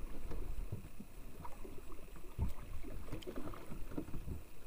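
Small waves lapping and slapping irregularly against the wooden hull of a drifting fishing boat, over a low rumble of wind on the microphone.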